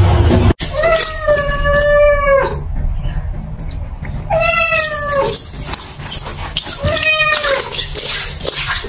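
A cat meowing three times in long, drawn-out calls while it is held in bath water. The first lasts almost two seconds, about a second in; a second comes around the middle and a shorter one near the end, each at a fairly steady pitch.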